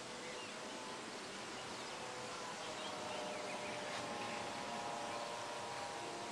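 Faint, steady whine of a distant electric model airplane's Graupner Speed 600 brushed motor and 8x6 propeller in flight: a hum of several steady tones that grows stronger about halfway through, over a steady hiss.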